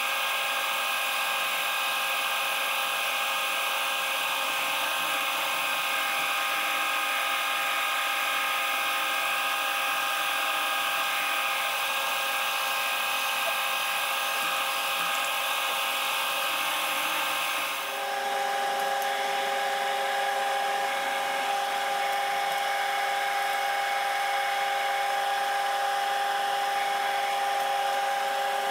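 Cincinnati milling machine's spindle running with a steady whine while a drill bores into the workpiece under flood coolant. About two-thirds of the way through the sound changes suddenly to a lower, steady whine.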